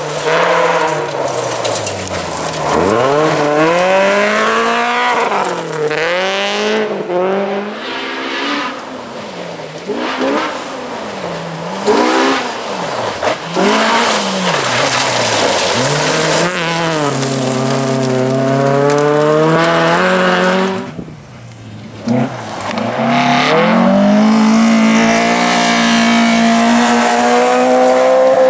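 Classic rally car engine driven hard, its pitch rising and falling over and over as it revs up and backs off between gears and corners. Near three-quarters through it drops away briefly, then climbs steadily again.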